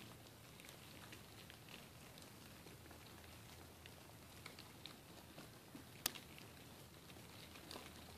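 Near silence with faint, scattered ticking and rustling from Dubia roaches crawling and feeding on orange slices on cardboard egg flats, and one sharper click about six seconds in.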